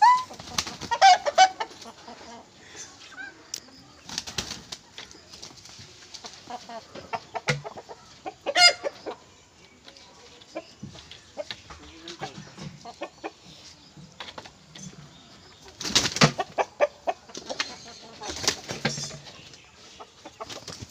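Two roosters fighting: sudden bursts of wing flapping with short clucks and squawks, loudest in a flurry about three-quarters of the way through.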